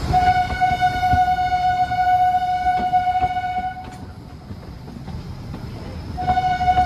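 Horn of a Kangra Valley Railway narrow-gauge train sounding one long steady blast of nearly four seconds, then a second blast starting near the end. Under the horn is the constant rumble and clatter of the carriages running along the track.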